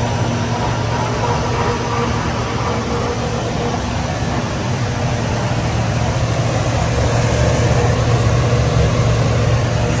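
Carbonization plant machinery running, with a centrifugal blower: a steady low hum under a rush of air, a little louder near the end.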